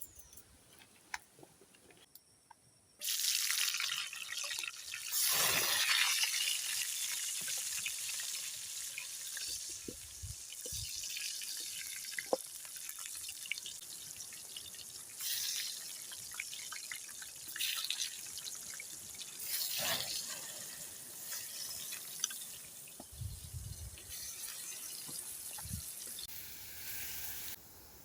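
Water running and splashing: a steady hiss that starts suddenly about three seconds in, swells a few times, and cuts off just before the end.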